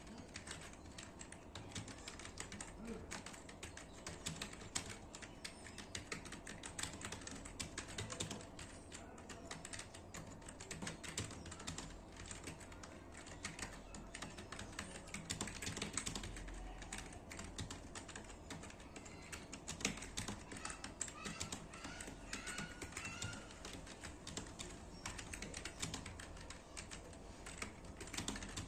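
Computer keyboard being typed on rapidly and continuously: a dense, uneven stream of keystroke clicks, as in a timed typing test.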